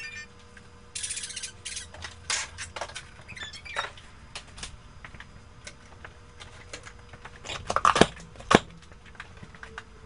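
Plastic baby toys clattering and knocking as they are picked up and tossed together, a run of irregular clicks with two louder knocks about eight seconds in.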